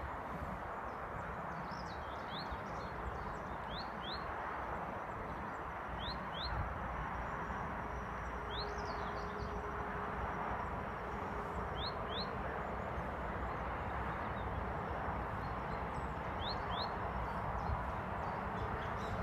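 A small bird calling in short, rising chirps, mostly in quick pairs every couple of seconds, over a steady outdoor background hiss.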